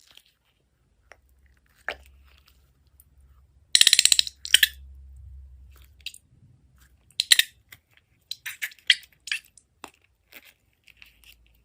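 Slime being squeezed and worked by hand, giving wet, crackly squishing sounds and scattered clicks. The loudest moment is a quick run of crackles about four seconds in.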